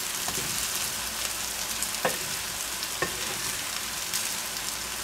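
Strips of marinated gyros meat with onions sizzling in a frying pan while a wooden spatula stirs and scrapes them, knocking on the pan twice, about two and three seconds in.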